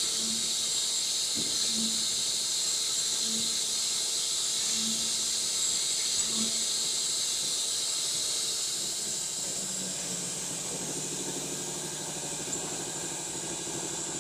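Air-cooled spindle of a 4-axis CNC router running at high speed while it carves the side edge of a wooden board: a steady high-pitched whine and hiss, with soft regular pulses about every one and a half seconds. About ten seconds in, the pulses stop and a lower steady hum joins the whine.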